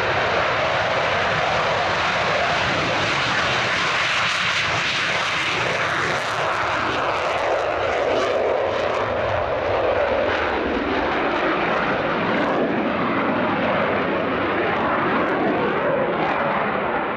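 Eurofighter Typhoon's twin EJ200 jet engines running at full power with afterburner during a take-off roll and climb-out. A loud, steady roar with a crackling edge in its middle part.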